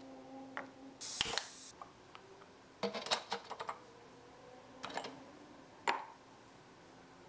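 Small clicks and knocks from handling miniature kitchenware: a tiny plastic container's lid pressed shut, a brief scraping rustle about a second in, then a cluster of light clicks, and the lid of a miniature pot lifted off and set down on a wooden board with a single sharp clack near the end.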